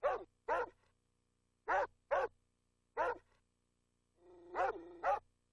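A dog barking: short single barks, mostly in pairs about half a second apart, with a longer drawn-out call running into a bark about four seconds in.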